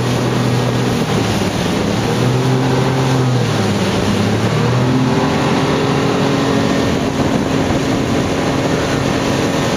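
Speedboat engine running at speed, a steady low drone whose pitch wavers slightly, over the hiss of spray rushing along the hull.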